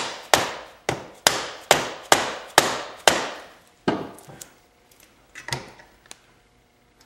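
Orange mallet striking a transmission shaft in an aluminium Yamaha YZ250F crankcase half to drive it loose: eight or so sharp blows at about two a second, each ringing briefly. The blows stop about three seconds in; one more blow follows, then a few lighter knocks as the mallet is set down.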